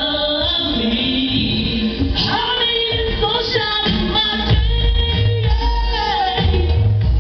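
Live gospel praise music: several voices singing over a band with strong bass notes.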